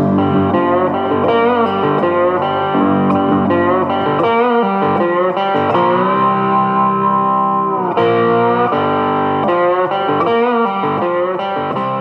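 Guitar-led instrumental background music, with bending notes and a long held note in the middle that bends down at its end.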